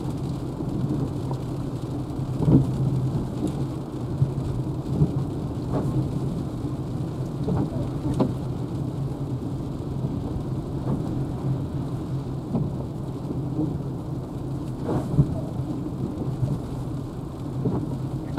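Rain falling on a Renault Zoe electric car, heard from inside the cabin, over a steady low hum from the moving car, with scattered faint ticks of drops.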